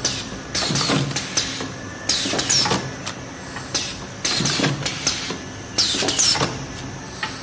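Paper cake cup forming machine running through its cycle, with a sudden burst of hissing, a short falling squeal and clanks about every two seconds.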